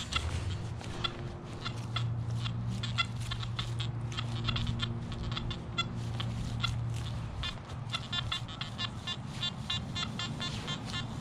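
Nokta Makro Anfibio metal detector sweeping the ground and giving short, rapid electronic target beeps, which come thicker and more steadily in the last few seconds as it passes over a target.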